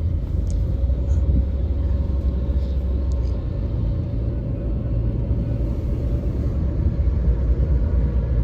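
Steady low rumble of a car driving along, engine and road noise heard from inside the cabin, with a faint constant hum.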